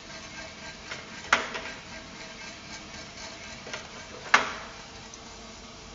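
Mill City Roasters MCR-6 6-kilo drum coffee roaster running steadily, its drum and fan making a low hum. There are two sharp metallic clicks, one just over a second in and one past four seconds, as the sample trier is pulled from and pushed back into the drum, and a few fainter ticks.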